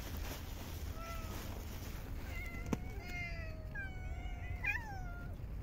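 Tabby cat meowing: one short meow about a second in, then a run of repeated meows from about halfway through, the last one rising and then falling. A single sharp click comes just before the run.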